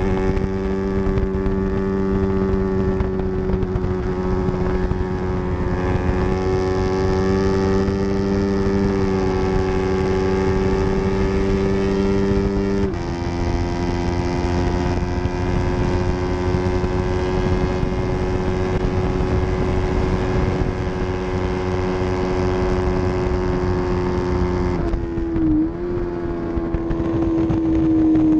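Yamaha R3's parallel-twin engine running hard at high revs, its note creeping up, with a gear change about halfway through. In the last few seconds the revs dip and the note falls away as the throttle closes.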